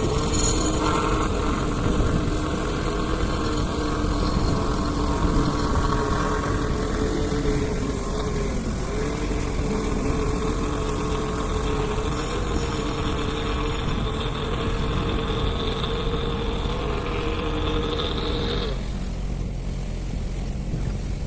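An engine running steadily. A steady hum within it cuts off suddenly about three-quarters of the way through, while the low engine noise goes on.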